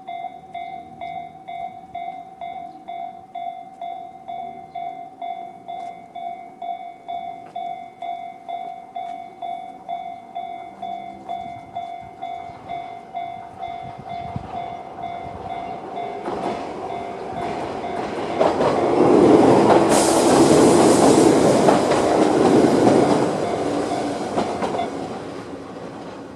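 Electronic level-crossing bell ringing the JR standard tone at about two strokes a second. A Toyama Chiho Railway 17480-series electric train approaches and runs through the crossing over the last ten seconds, drowning the bell at its loudest. The bell stops near the end as the train clears.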